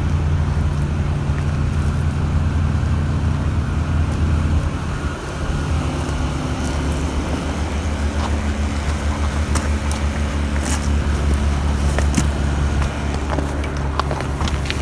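Engine of the heavy equipment on the job idling steadily with a low hum, dipping briefly about five seconds in, while the tools and loader bucket are being lubricated. A few light clicks or taps sound in the second half.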